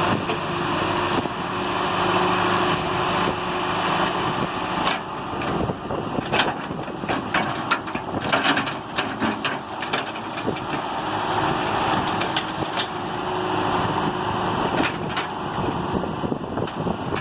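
John Deere 595D excavator's diesel engine running steadily as the machine works, with a run of sharp metallic clanks and knocks through the middle and a few more near the end.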